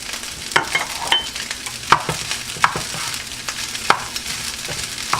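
Chicken fried rice sizzling in a hot pan as butter is stirred through it, with a spatula knocking and scraping against the pan every second or so.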